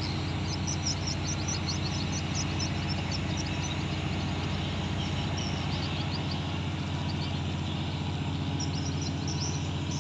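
A cargo ship's engine running steadily with a low hum as the ship berths. Small birds chirp in quick runs over it.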